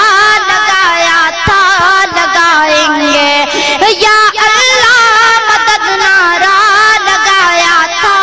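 A high voice singing a naat, an Urdu devotional song, in long, wavering, ornamented sung lines.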